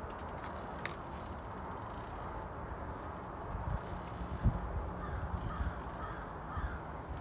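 Steady outdoor background noise with a few dull low thumps, the loudest about four and a half seconds in, and faint calls of a bird in the background, like a crow cawing.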